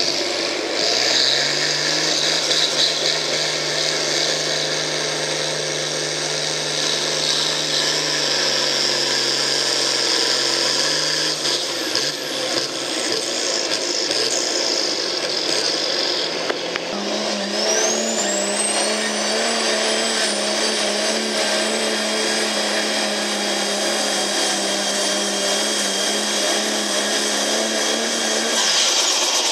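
A pulling tractor's diesel engine running flat out at a steady pitch as it drags the sled, for about ten seconds, then dying away. A few seconds later a second-generation Dodge Ram pickup's engine comes on at full throttle and holds a steady pitch, with a high whine that rises and then holds near the top.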